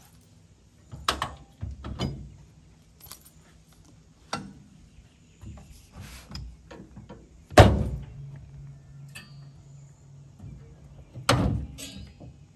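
Metal clanks and knocks from handling the PTO driveshaft and three-point hitch of a Land Pride rotary cutter on a tractor: about five sharp knocks, the loudest a little past halfway, followed by a brief low ring, and another loud one near the end.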